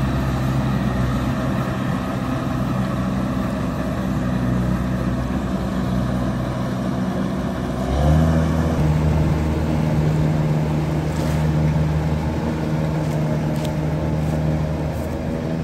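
Rice combine harvester's diesel engine running steadily while cutting rice, a low, even drone. About eight seconds in it becomes louder and fuller.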